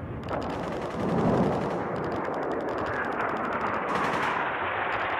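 Automatic gunfire: rapid trains of shots over a heavy, steady din, with one long burst from about two seconds in that lasts roughly two seconds.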